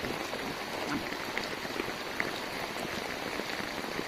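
Steady rushing water with scattered small drips and taps.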